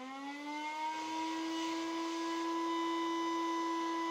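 Electric motor spinning a rotor of magnets in a home-built eddy-current induction heater, its whine rising in pitch as it spins up and then holding steady from about a second in.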